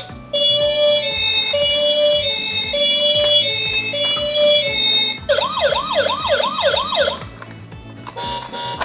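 Toy ambulance's electronic siren: a two-tone hi-lo siren alternating about every half second. About five seconds in, it switches to a fast rising-and-falling yelp for about two seconds.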